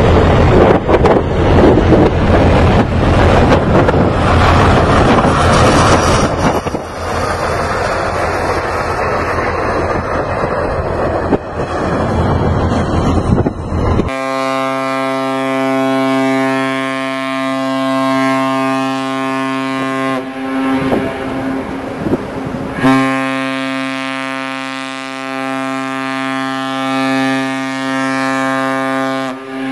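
Loud rushing noise for the first half. Then a ship's horn sounds two long, steady, deep blasts of about six seconds each, with a short gap between them.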